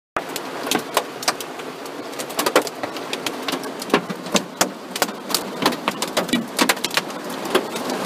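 Hail striking a car's metal body: an irregular clatter of sharp clacks over a steady hiss.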